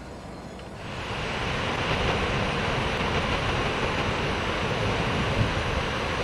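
Steady rushing noise of ocean surf, fading in about a second in and holding even.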